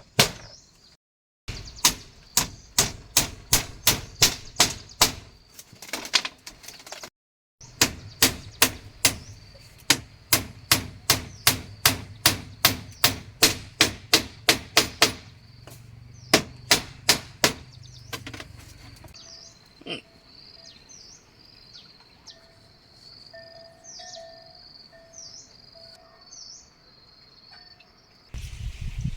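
Rapid sharp blows of a hand tool, about two to three a second, in runs broken by abrupt cuts. Near the end the blows stop and birds chirp.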